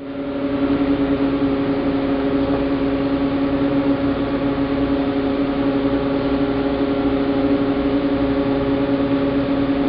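Sternwheeler's wooden paddle wheel turning and churning the river water, a steady splashing wash over a constant hum from the boat's machinery.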